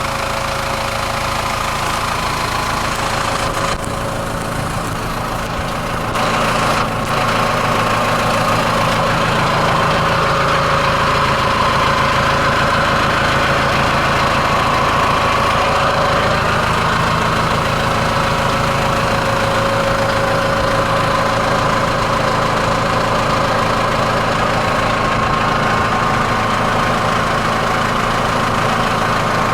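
Tractor engine running steadily, with a steady whine on top, growing a little louder about seven seconds in.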